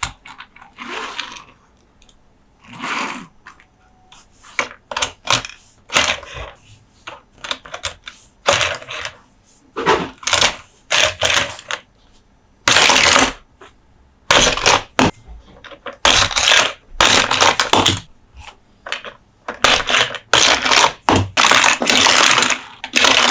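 Close-up hands tapping, scratching and handling Monster Jam toy trucks, giving an irregular run of clicks and short scratchy scrapes that grow louder and more frequent about halfway through.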